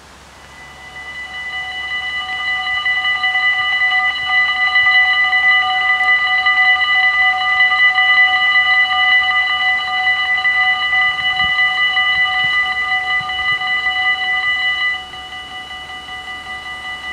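Dutch level-crossing warning bells, four of them, ringing rapidly and continuously as the AHOB crossing activates and its barriers lower. The ringing swells over the first few seconds. About fifteen seconds in it drops in level as some of the bells stop, with the barriers down, while the rest keep ringing.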